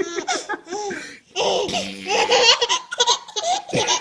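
A baby laughing in bursts of high-pitched giggles. There is a brief pause about a second in, then a longer run of laughter.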